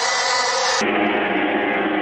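Harsh electronic noise music: a dense, steady wall of hiss and drone. A little under a second in it switches abruptly, losing its top end and gaining a lower buzzing band.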